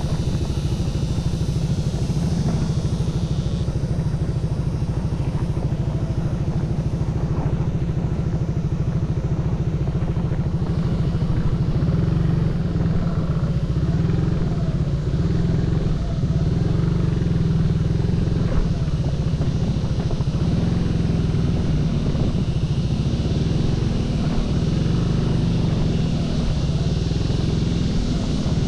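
Motorcycle riding along the road, its engine running under a continuous low rumble of road and wind noise.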